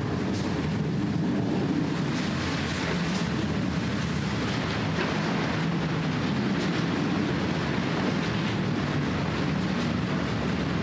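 Steady low rumble of city traffic, with a hiss and scattered faint ticks above it.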